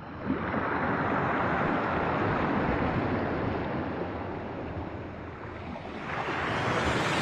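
Small waves breaking and washing up a gravelly beach. A loud wash comes in about a second in and fades, and the next wave builds near the end.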